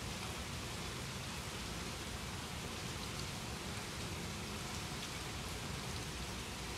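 Steady rain falling, an even hiss of rain on surfaces that neither swells nor breaks.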